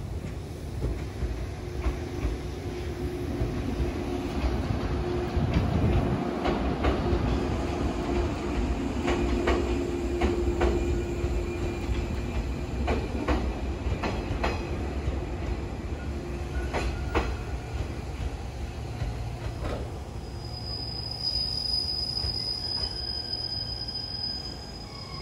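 A JR 115-series electric multiple-unit train runs past through the station with a steady low rumble and hum. Its wheels knock repeatedly over rail joints in the middle stretch, and a high thin squeal comes from the wheels near the end.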